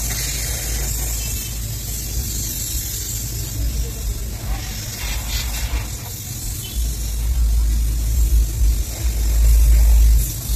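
Steady high sizzle of frying in a wok of hot oil and buns toasting on a flat griddle, over a low rumble that grows louder in the second half.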